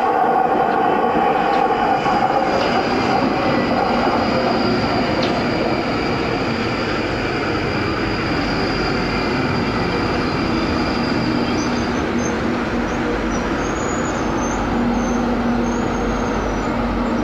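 London Underground Northern line train running at the platform, a loud steady rail rumble with a thin high whine that stops about twelve seconds in.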